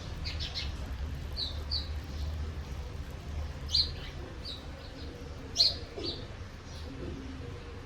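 Birds chirping in short, high chirps, a few scattered at a time, the loudest two a little before and after the middle, over a steady low hum.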